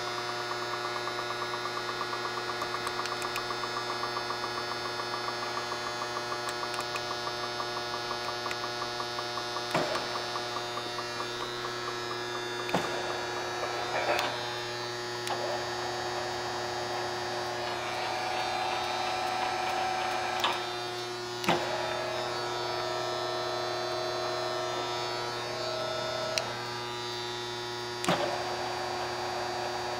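Chevalier FSG-1228AD surface grinder's motors humming steadily while its axes are jogged, with a fast regular ticking through the first third. Several sharp clicks of switches come later, and a higher whine comes in about halfway and shifts in pitch a couple of times.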